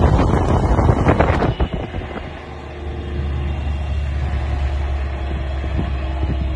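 Wind buffeting the microphone for about the first second and a half, then the steady low drone of the vehicle's engine as it runs.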